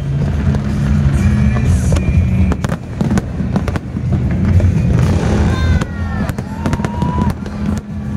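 Fireworks bursting in a rapid series of bangs over a dense low rumble, with music playing along. A few short whistling tones come about halfway through.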